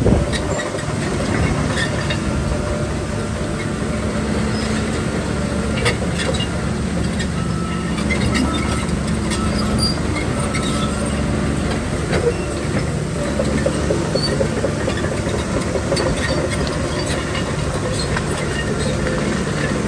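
Shantui crawler bulldozer's diesel engine running steadily under load, with constant clanking and brief squeaks from its steel tracks and a sharp loud knock right at the start.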